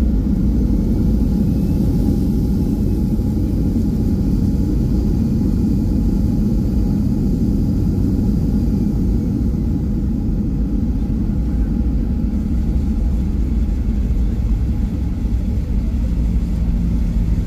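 Steady low rumble inside a jet airliner's cabin as it rolls along the runway after landing, with the engines and the wheels on the runway heard through the fuselage.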